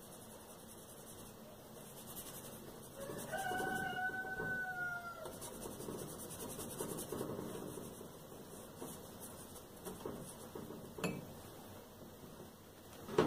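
Faint rustling and rubbing of glue-wet magazine paper being smoothed by hand onto a metal bread box. About three seconds in, one long pitched call sounds for roughly two seconds, and there is a sharp click near the end.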